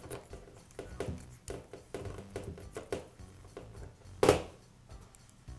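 Small metal clicks and taps of a box-end wrench working the nut off the end of an angle grinder's armature shaft, with a short, louder burst of noise about four seconds in.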